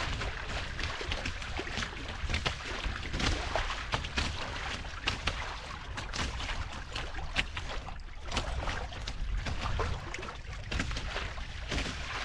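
Water splashing and sloshing against the hulls of a small sailing catamaran under way, in irregular slaps, over a steady low wind rumble on the microphone.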